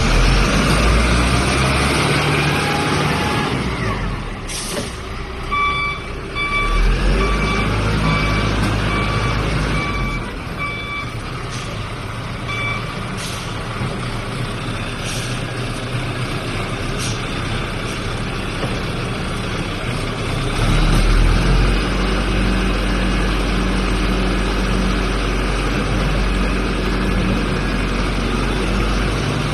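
Backhoe loader's diesel engine running under work, with a reversing alarm beeping about once a second from about five to twelve seconds in, and a few short hisses. The engine grows louder about twenty seconds in.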